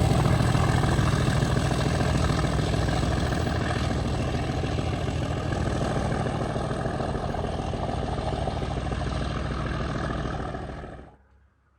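Convoy of heavy diesel locomotives led by a Class 37, with a Class 45 and a Class 20, running with their engines under power. The steady engine sound slowly eases and then cuts off abruptly near the end.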